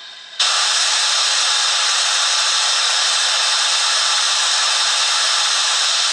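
Recorded steam locomotive safety valves blowing off, played by a Doehler & Haass sound decoder with Locoman Sounds' Thompson A2 Pacific profile through a model locomotive's small speaker. It is a loud, steady hiss that starts suddenly about half a second in.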